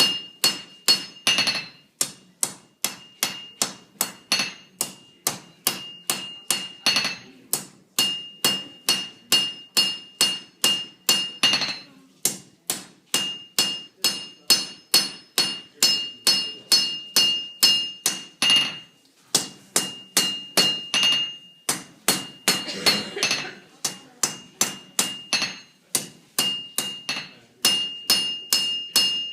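Forging hammer striking a red-hot steel sword blank on an anvil, shaping the upper part of the blade where the handle goes. The blows come in a steady run of about three a second, each with a metallic ring, with brief pauses every few seconds.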